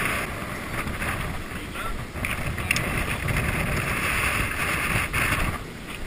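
Wind rushing over the camera microphone: a steady noisy rumble with a hiss above it.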